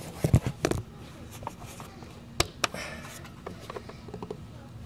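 Sharp metal clicks and clacks of hand tools working hose clamps on the intake: a quick cluster in the first second, two clicks close together about halfway, then a few faint ticks.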